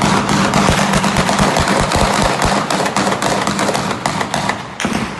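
Sustained automatic gunfire: a long run of rapid shots, too fast to count, then a short last burst before it stops near the end.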